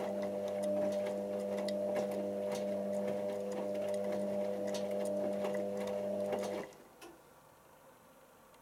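Hotpoint First Edition HVL211 washing machine's drum motor running with a steady hum as the laundry tumbles, with scattered light clicks from the load in the drum, during the heating stage of a 90 °C cotton wash. The motor stops suddenly after about six and a half seconds.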